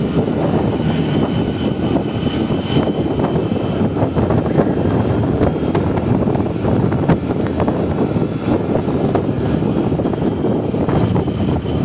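Honda Activa 6G scooter riding at about 40 km/h: a steady rush of wind and road noise over its 110 cc single-cylinder engine.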